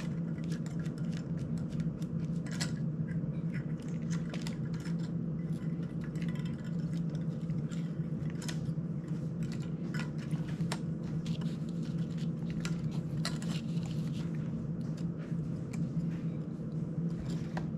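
Scattered small clicks and taps of hands handling a small drone's frame and plastic prop guards, over a steady low hum.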